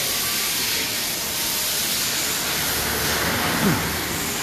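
Steady hiss of workshop background noise, with one short tone falling in pitch about three and a half seconds in.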